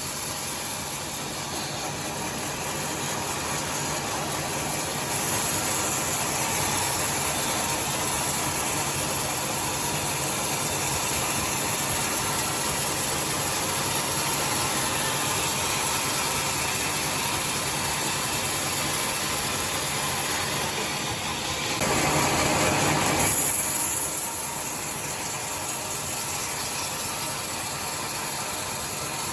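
Sawmill saw running and ripping timber into 2 cm boards: a steady mechanical drone with a low hum that rises as the blade is in the cut. A brief louder surge comes about two-thirds of the way through.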